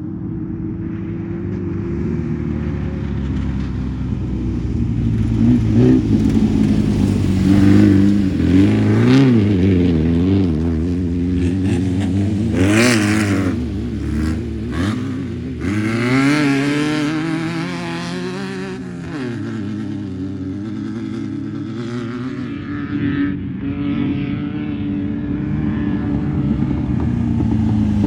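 Off-road race cars' engines running and revving, the engine pitch rising and falling several times through the middle, loudest about halfway, over a steady engine drone.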